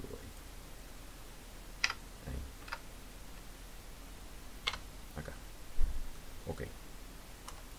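Computer mouse clicks and keyboard key presses: a handful of separate sharp clicks spread over several seconds, with a few soft low thumps between them.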